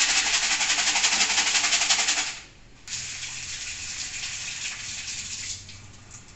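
Plastic coolant reservoir shaken hard with aquarium gravel and cleaning liquid inside, a fast continuous sloshing rattle as the gravel scours the dirt off the inside. It stops about two seconds in, then tap water runs more quietly into the sink as the reservoir is rinsed.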